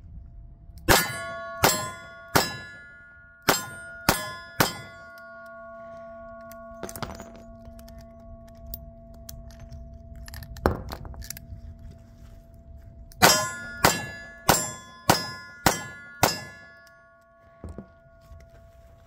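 Revolver fired six times in quick succession, each bullet hitting a steel target with a clang that keeps ringing. A pause with a few knocks follows while the brass is dumped and the cylinder reloaded. Then six more rapid shots ring the steel again.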